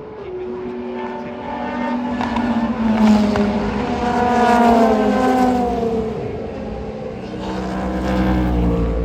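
Race cars passing at speed one after another, each engine note falling in pitch as the car goes by. The loudest pass comes around the middle, with another car approaching near the end.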